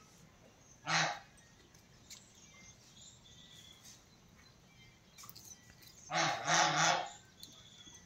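Farm animal calls: one short call about a second in, then a louder three-part call about six seconds in.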